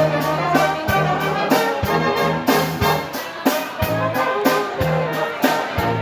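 Blaskapelle brass band playing live: tuba bass notes under trumpets and trombones, kept in time by a steady drum beat of about three strokes a second.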